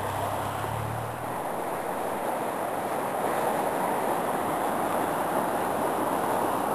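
Swollen, muddy stream in flood rushing steadily, a continuous roar of fast water. A car engine's low hum is heard under it for about the first second and fades out.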